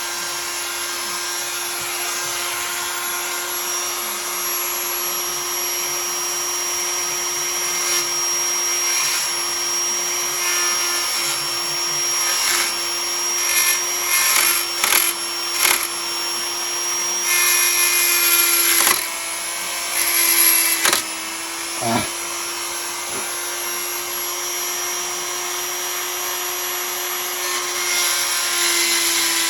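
A high-speed rotary tool with a burr running with a steady whine, with louder bursts of grinding in the middle as the burr is pressed on the sharp lead of a freshly cut thread to take it off.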